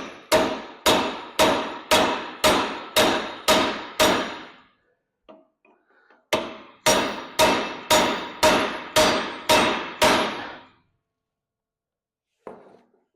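Hammer striking a rivet set, pounding a heated rivet flat to form a rounded mushroom head, each blow ringing with a metallic tone. The blows come about two a second in two runs of around nine, with a pause of about two seconds between them.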